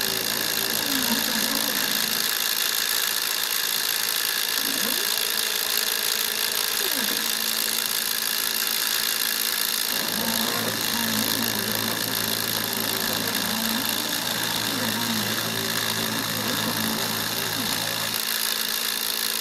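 CNC engraving machine cutting into wood. The spindle motor runs steadily with a high whine, which the owner finds too slow for the job. Over it the axis motors give short tones that rise and fall in pitch as the bit traces the letters, and a low hum comes in about halfway and stops shortly before the end.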